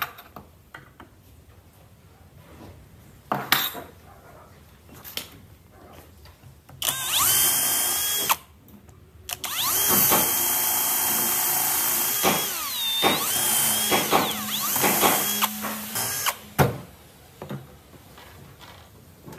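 Cordless drill boring holes into pine framing: a short run of about a second and a half, then a longer run of about six seconds whose whine dips and rises as the trigger is eased and pressed. A sharp knock comes before the first run and another just after the second.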